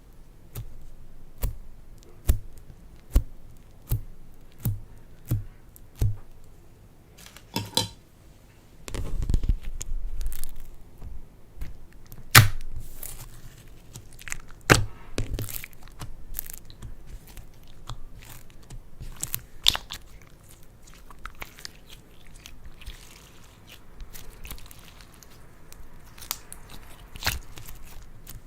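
Hands pressing, poking and stretching slime: a run of sharp sticky clicks and pops, with a denser squelching stretch about nine seconds in.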